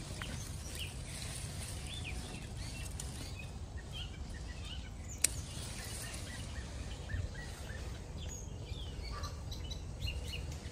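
Small birds chirping in many short, separate calls over a low, steady rumble, with one sharp click about five seconds in.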